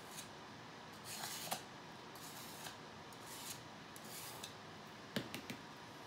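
Cake-turntable pour-painting setup being turned by hand: quiet short scraping and rubbing swishes, then a few sharp clicks a little after five seconds in.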